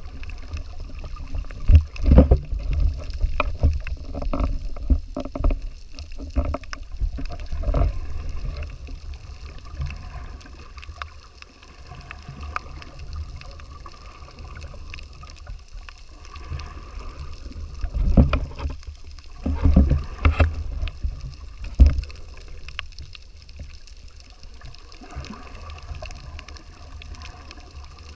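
Muffled water sound heard underwater while snorkelling: a low rumble of moving water with irregular thumps and knocks. The thumps come in a cluster near the start and another about two-thirds of the way through.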